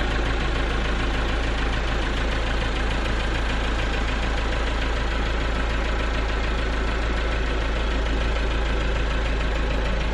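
An engine running steadily, with a strong low hum and no change in speed.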